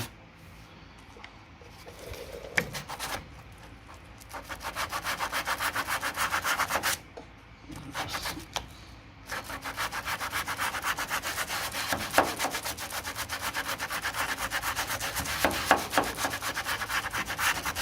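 Hand sanding of cured body filler on a steel car door sill: quick back-and-forth abrasive strokes, several a second, in two spells with a pause between them a little under halfway through.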